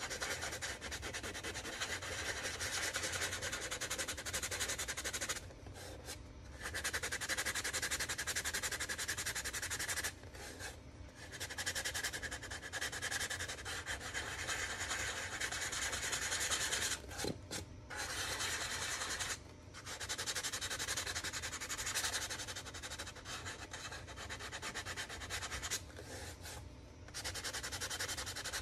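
180-grit sandpaper rubbed by hand over a styrene plastic model part in quick back-and-forth strokes, a steady scratchy sanding sound with several brief pauses. It is smoothing the rough surface left after raised detail was ground flat with a rotary tool.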